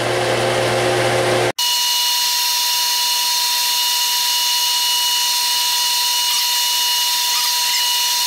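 Metal lathe running under cut, a carbide tool turning down the end of a steel rod: a steady machine whine with cutting hiss. About a second and a half in the sound changes abruptly, the low hum drops away, and a steadier high whine with several fixed tones carries on.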